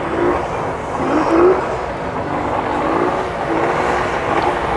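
Old Johnson outboard engine running near full throttle, its pitch surging up and down, with the propeller churning the water. The throttle has apparently stuck wide open.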